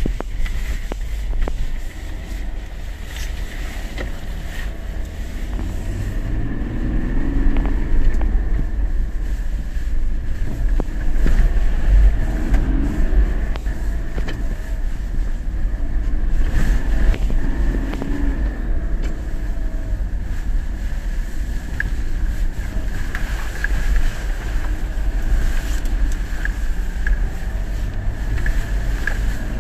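Ineos Grenadier driving off-road over a rough dirt track, heard from inside the cabin: a steady low rumble of engine and tyres, with the engine note rising and falling a few times and occasional knocks over bumps.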